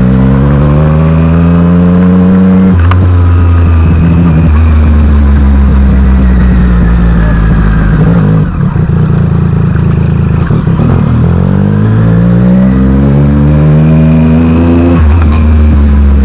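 Motorcycle engine under way, revving up with rising pitch and dropping sharply at each upshift. It upshifts about three seconds in, eases off and slows around eight to eleven seconds, then accelerates again with another upshift near the end.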